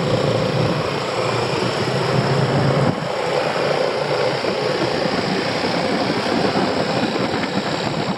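Yamaha XMAX scooter running at riding speed: a steady engine hum under a loud rush of wind and road noise. The engine tone is clearest in the first few seconds, after which the rush dominates.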